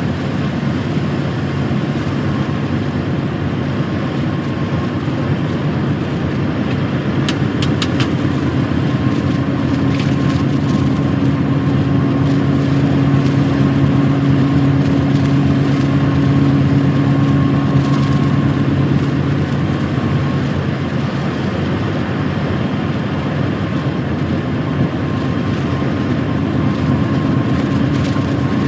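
Heavy truck's diesel engine running steadily on the road, with tyre and road noise and a hum that shifts slightly in pitch. A few sharp clicks come about seven to eight seconds in.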